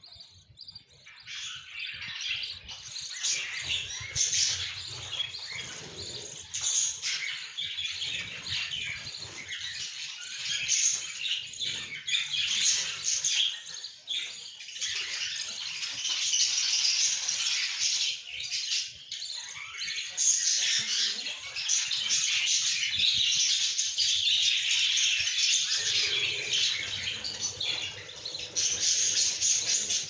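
Budgerigar nestlings giving dense, high-pitched chirping begging calls while an adult budgie feeds them in the nest box; the chirping swells about two seconds in and stays busy.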